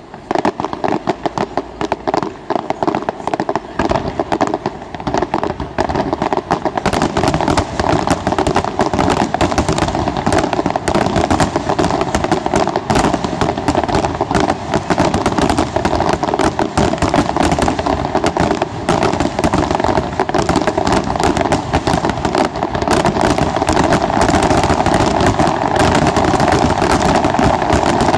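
Aerial fireworks display: a rapid, continuous barrage of bangs and crackles from bursting shells, growing denser a few seconds in and louder toward the end.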